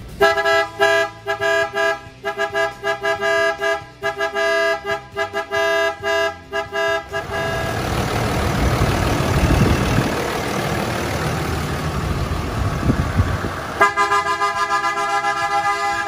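Two pairs of PIAA Superior Bass electric horns sounding several tones together, loud, in a quick run of short taps for about seven seconds. A loud rushing noise with no horn tone follows, and the short horn taps come back near the end.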